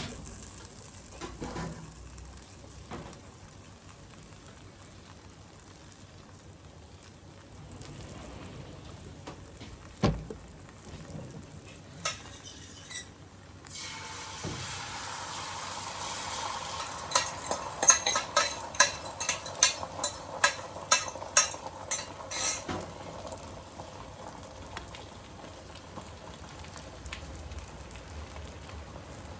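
Food frying in a hot pan: a steady sizzle starts about halfway through, preceded by a few isolated knocks. For about five seconds during the sizzle, a utensil taps sharply against the pan or bowl, roughly twice a second.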